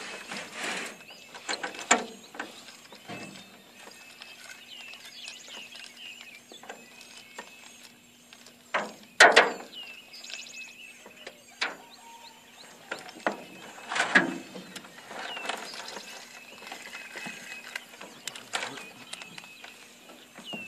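A fishing reel being cranked to retrieve the line, its gears clicking and ratcheting. There are two louder knocks, about nine and fourteen seconds in.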